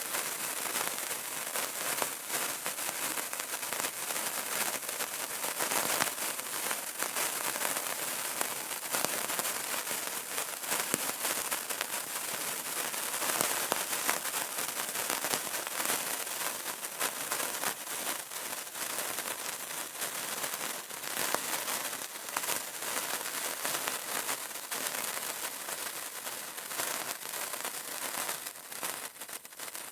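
Burning candle crackling: a dense, steady stream of tiny pops and ticks from the flame.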